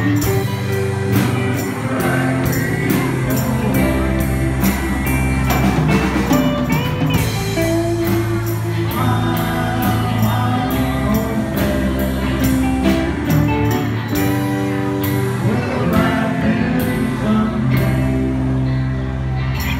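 Live rock band playing, with a man singing lead over electric guitars, bass guitar and drums, and cymbal strokes keeping a steady beat.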